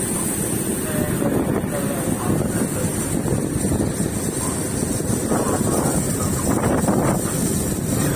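Fishing boat's engine running steadily under way, with wind buffeting the microphone and water rushing along the hull.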